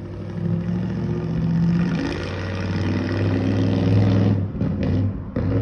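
Car engine running and revving, rising in pitch and loudness through the middle, then dropping away near the end with a few short knocks.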